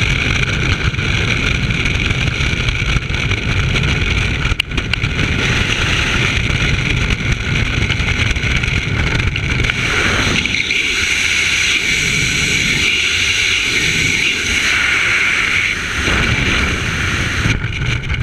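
Steady rush of freefall wind over a skydiver's camera microphone, its tone shifting about ten seconds in.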